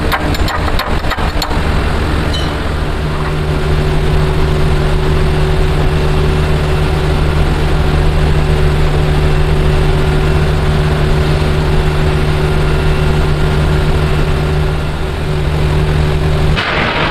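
A motor or engine running steadily in the background with an even hum. A few sharp clicks sound in the first second or two, and a short rush of noise comes near the end.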